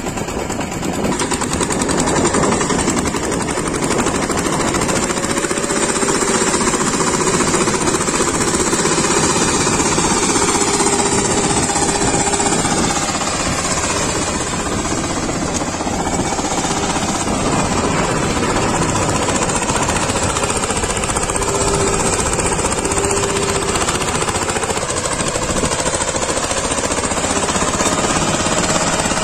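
VST Shakti 130 DI power tiller's single-cylinder diesel engine running steadily under load with a rapid knocking beat while its rotary tines churn soil.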